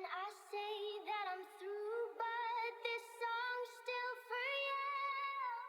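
High-pitched singing voice in short phrases with sliding pitch, thin and filtered with no bass, opening a hip-hop track before the beat comes in.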